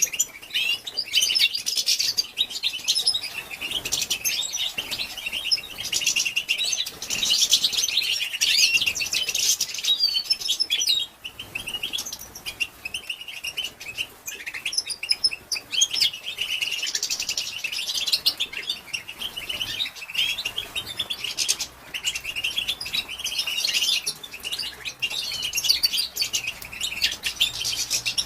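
European goldfinch twittering: fast, high chattering calls almost without pause, with a short break about eleven seconds in. It is the female's twitter, the kind played to stir male goldfinches to sing.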